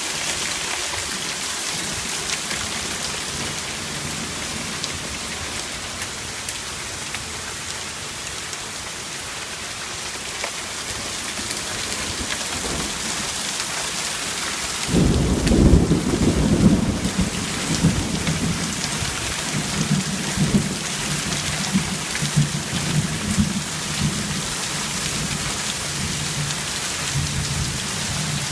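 Heavy rain pouring down steadily. About halfway through, a sudden clap of thunder, followed by low, rolling thunder rumbles that last roughly ten seconds.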